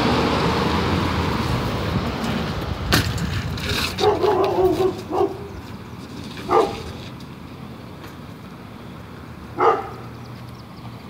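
A dog barking: a cluster of barks about four to five seconds in, then single barks near six and a half and nine and a half seconds. Under it, the noise of a passing vehicle fades away over the first few seconds.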